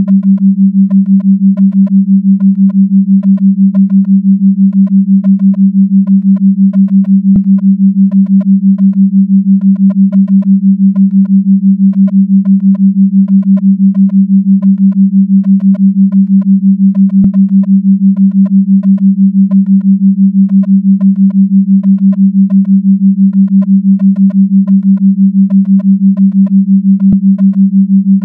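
A steady electronic tone of about 200 Hz that pulses rapidly in level. Short, higher-pitched beeps come in quick runs over it, and a faint click sounds three times, about ten seconds apart.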